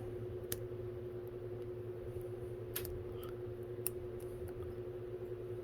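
Steady background hum with one constant tone, and a few faint light clicks as the locking tab of a plastic wiring connector is worked with a small pick.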